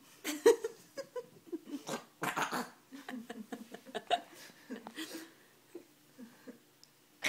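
A 5.5-month-old baby making her weird new sound, which sounds like a baby monkey: a quick string of short vocal bursts that thins out near the end.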